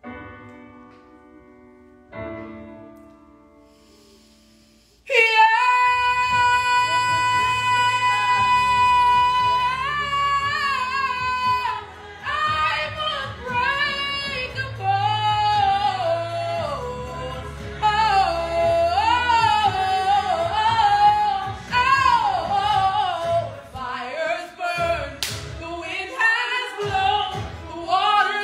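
A woman singing a ballad over a backing track: quiet chords fade out, then about five seconds in she belts a long, high held note and carries on into runs and riffs with vibrato.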